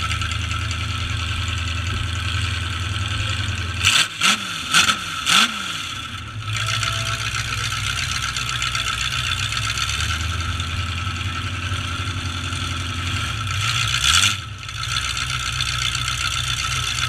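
Demolition derby truck engines running loud and steady, with four quick revs in a row about four seconds in and another rev near the end.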